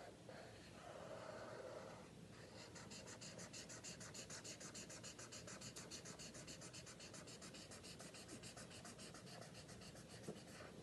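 Faint scratching of a felt-tip marker on paper: one drawn stroke, then quick, even back-and-forth scribbling at about six strokes a second as a wavy shape is filled in solid.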